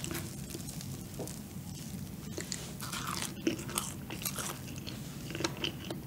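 Close-up chewing of a soft fried cream donut filled with matcha cream, with many short, soft mouth clicks.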